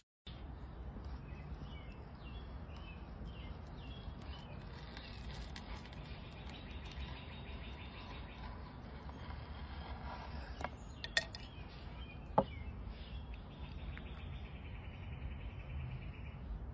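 Outdoor background noise with small birds chirping over the first few seconds, and two sharp clicks about eleven and twelve seconds in.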